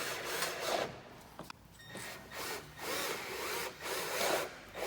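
Drill bit cutting through a plastic side splitter into the car's sill, a rasping sound in several short bursts with brief pauses between.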